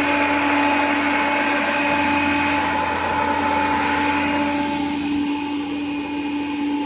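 Old engine-driven farm blower fan running at speed: a steady whirring hum over a rush of air.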